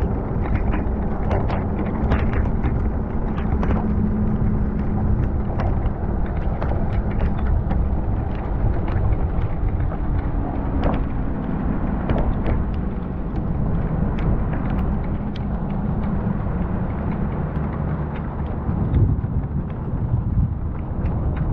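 Vehicle driving along a wet road: a steady rush of wind and tyre noise with a low, even engine hum, and scattered sharp ticks throughout.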